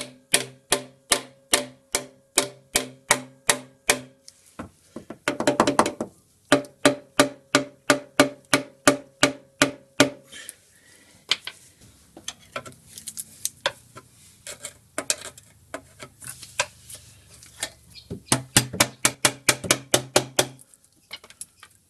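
A mallet tapping a Subaru 4EAT automatic transmission's steel oil pan in quick runs of about three ringing taps a second, to break the unbolted pan free of the case. Between the runs, about halfway through, come lighter clicks and scraping.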